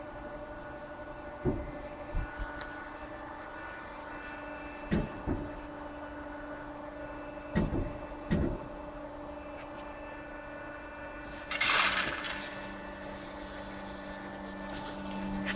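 KASTO HBA 420 AU automatic horizontal band saw running with a steady hum made of several fixed tones, broken by a few dull thumps. About eleven seconds in there is a short hiss, after which a lower steady tone sets in and grows louder towards the end.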